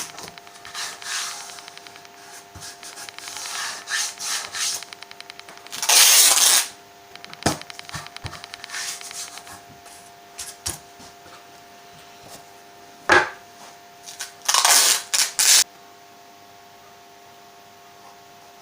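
Hand work at a workbench: wood and tools being handled and rubbed, with a couple of sharp knocks and two short, loud hissing scrapes. A low hum runs underneath.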